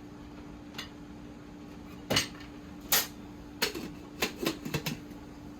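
Spoon and dishes clinking and knocking as cooked rice is dished onto a plate: a few separate knocks, then a quick run of them about three and a half seconds in, over a faint steady hum.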